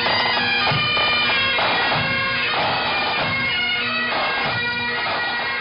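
Bagpipes playing a tune over their steady drone, with a low drum beat about once a second.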